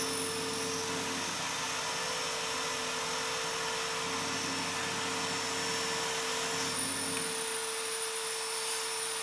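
Benchtop drill press spinning a homemade sanding drum, a steady motor whine, with plywood being sanded against the drum.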